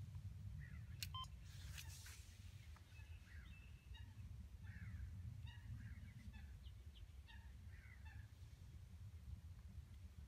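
Birds calling faintly by a pond: a run of short chirping notes, some slurring downward, over a steady low rumble, with a couple of clicks about a second in.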